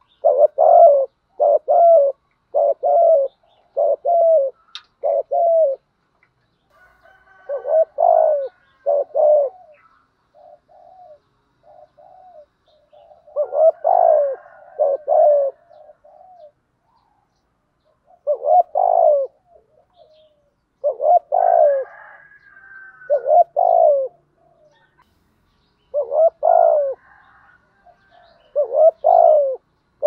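Spotted dove cooing: short, low coos repeated in a quick run, then in groups of several with brief pauses between them.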